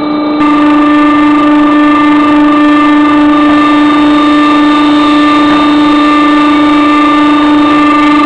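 Automatic blow moulding machine running while a plastic parison extrudes between the open mould halves: a loud, steady drone with an unchanging pitch that steps up in loudness about half a second in.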